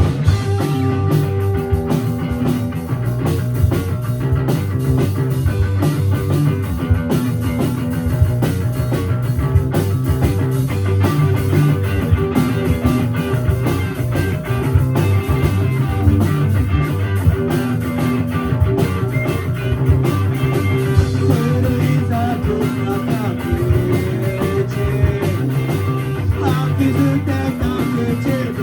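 Rock band playing live: distorted electric guitar, bass and drums in a loud, driving passage.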